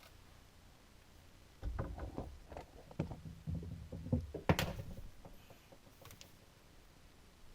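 Knocks and clunks of hands and tools working on a garbage disposal and its fittings under a kitchen sink: a busy run of handling noises starting about two seconds in, with one sharp knock near the middle and a couple of small clicks after.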